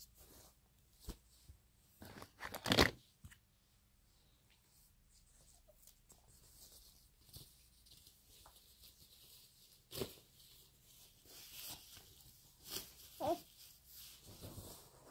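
Scattered rustling, crinkling and tearing sounds of things being handled, with a few sharp clicks; the loudest rustle comes about three seconds in, and there is a brief squeak near the end.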